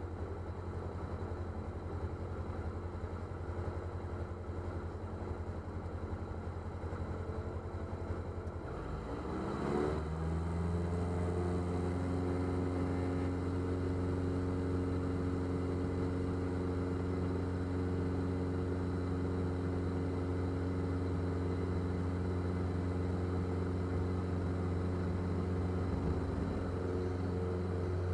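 Diamond DA40's piston engine and propeller heard from inside the cockpit, running at low power, then throttled up to full power about ten seconds in with a rising sweep in pitch. After that it runs steadily at high power for the takeoff roll.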